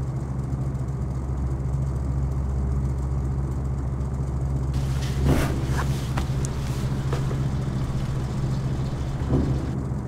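A steady low hum, with a short sharp knock or rustle about five seconds in and a smaller one a little after nine seconds.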